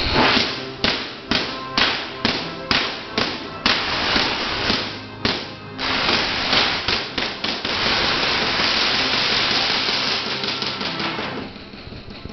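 Spark discharges from a giant Van de Graaff generator: a run of sharp electric cracks about two a second, then a dense, almost unbroken crackling for several seconds that drops away near the end.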